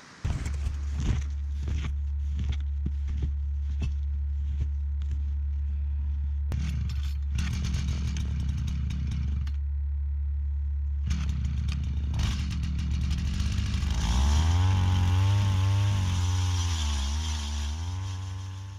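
Gas-powered ice auger engine running steadily, with scattered clicks and clatter. About 14 seconds in it revs up and its pitch wavers up and down as the auger bores into the ice, then it fades out at the end.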